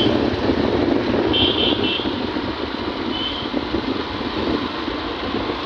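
Steady wind and road noise of a moving vehicle on a highway, with its engine running underneath. Short high chirps sound about one and a half seconds in and again about three seconds in.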